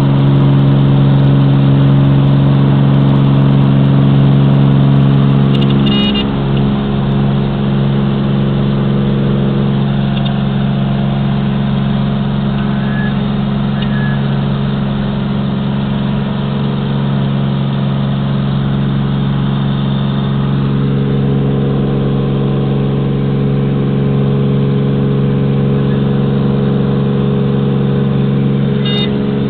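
Cessna 206's six-cylinder piston engine and propeller running at takeoff power, a steady loud drone heard inside the cabin through the takeoff roll and climb-out. The drone eases slightly about six seconds in, with a brief click there and another near the end.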